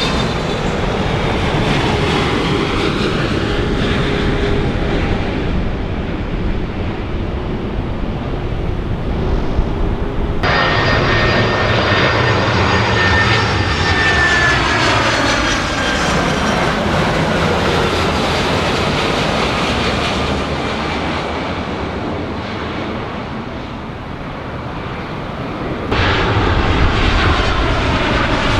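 Jet airliner engines passing, with high whines that slowly fall in pitch over a steady rush. The sound switches abruptly twice, about ten seconds in and near the end, each time to another aircraft passing.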